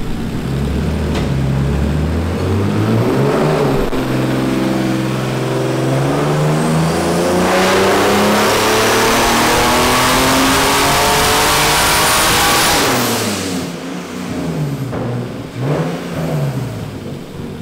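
Turbocharged BMW E36 M3 straight-six making a full-throttle dyno pull at a baseline 10 psi of boost. The engine's pitch climbs steadily for about ten seconds and grows loud with a rushing hiss near the top. Then the throttle closes and the revs fall away, with a couple of smaller rises and falls near the end.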